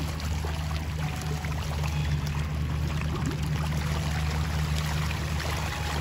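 Water splashing and churning as a mass of fish thrash at the surface, fighting over thrown feed.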